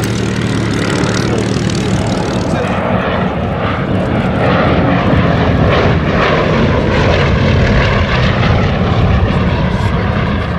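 The twin Bristol Mercury nine-cylinder radial engines of a Bristol Blenheim Mk I. For the first few seconds they run steadily at low power as it taxis. About three seconds in they give way to the louder sound of the engines at power in flight, with the pitch wavering as the aircraft passes.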